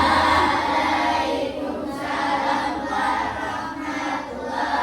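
A class of young children's voices chanting together in unison, many voices at once.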